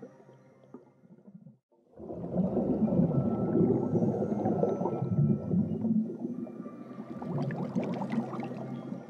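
Underwater-style ambient soundtrack: a low, swelling drone with gurgling. It cuts out briefly near the start, swells up about two seconds in, eases off, then swells again near the end.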